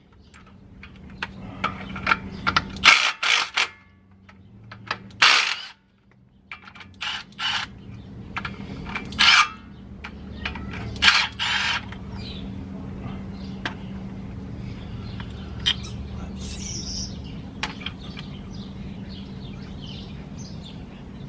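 Hand tools clanking and scraping against metal parts as a pickup's front steering knuckle is taken apart: a run of sharp, irregular knocks and clatters over the first twelve seconds or so. After that the work goes quieter, leaving a steady low hum and a few faint bird chirps.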